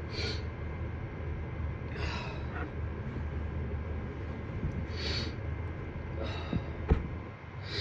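A person sniffling and breathing through the nose after an allergy sneezing fit: several short, breathy sniffs a second or more apart, with a small click near the end.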